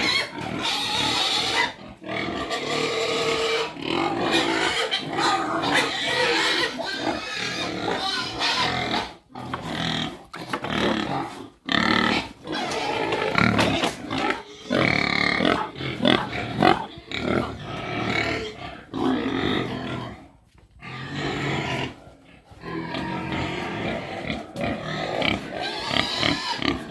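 Pigs squealing and grunting on and off, loud calls with a few short breaks.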